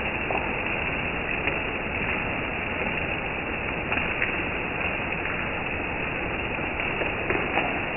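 Heavy rain falling steadily on trees and foliage, an even hiss with scattered sharper drop hits now and then.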